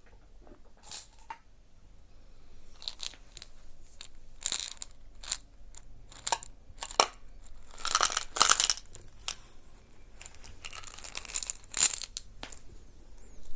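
Close-up crackling and rustling handling noises, made in irregular bursts. The densest runs come about eight seconds in and again around eleven to twelve seconds.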